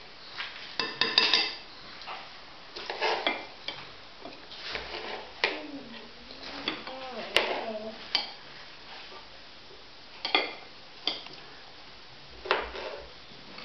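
Small knives clicking, tapping and scraping against plastic plates and a cutting board as cucumber and tomato are sliced, in irregular short clatters.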